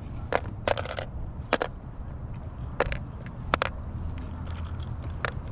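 Scattered sharp clicks and knocks of plastic tackle boxes and lures being handled while searching for a jig, about six in all, over a steady low rumble.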